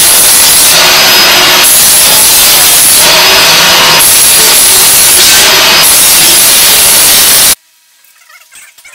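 Very loud, harsh hissing noise from a power tool working steel, changing character in alternating stretches about a second long, some with a steady high whistle. It cuts off abruptly near the end.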